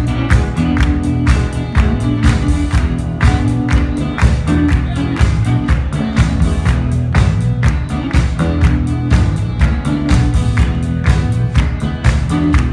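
Live rock band playing with drums keeping a steady beat under electric guitars and bass.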